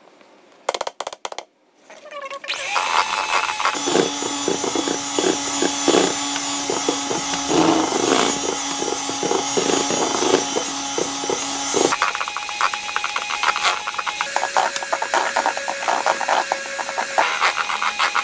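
Electric hand mixer running, its beaters whirring through thick pumpkin and egg-yolk cake batter in a stainless steel bowl with a regular clatter. The motor's pitch changes about twelve seconds in. A few short knocks come just before it starts.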